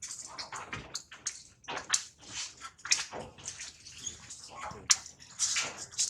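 Water splashing and sloshing in irregular bursts, as in a tub or basin.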